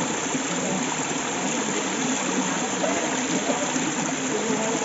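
Stream water running steadily, with a gurgling burble.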